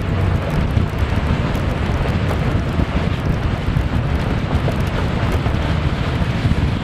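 Steady wind rushing over the microphone of a camera mounted in the open bed of a moving pickup truck, with road noise underneath. The wind noise is loudest in the low end.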